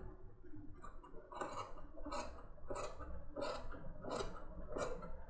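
Tailor's shears cutting through suiting fabric in a run of snips, roughly one every two-thirds of a second, starting about a second in: trimming a sleeve piece.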